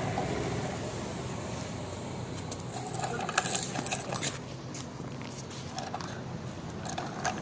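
Small motor of a toy tractor running steadily as it drives over a dirt floor, with a few clicks and rattles about three to four seconds in and once more near the end.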